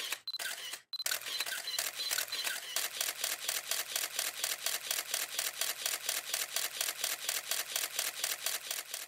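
Rapid, evenly spaced clicking, about six clicks a second, with a faint high beeping repeated through the first two seconds or so.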